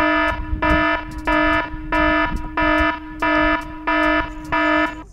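Alarm buzzer sound effect beeping eight times, about one and a half beeps a second, over a steady tone at the same pitch, used as a big-crappie alert.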